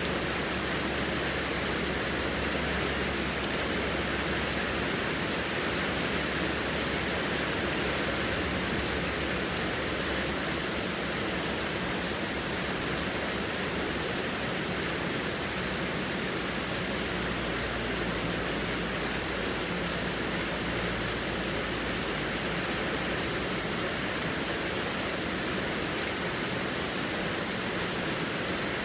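Heavy rain falling steadily, a dense even hiss of rain with no separate drops or thunder standing out.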